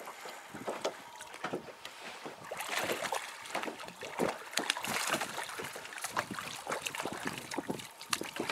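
Small waves lapping and slapping against the side of a small boat, with irregular splashes that grow busier about two and a half seconds in as a hooked pejerrey thrashes at the surface while being reeled in.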